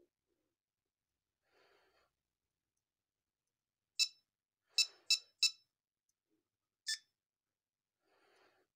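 Short electronic beeps from the small speaker of a Star Trek TNG phaser prop's sound board as its buttons are pressed: one beep, three quick ones about a third of a second apart, then one more.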